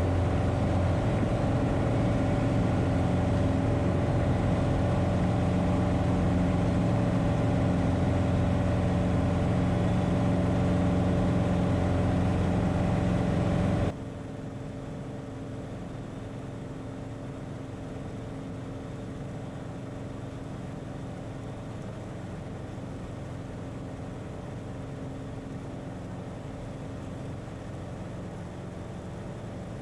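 Cessna 177RG Cardinal's engine and propeller droning steadily in flight. About halfway through, the drone drops suddenly to a quieter, steady level.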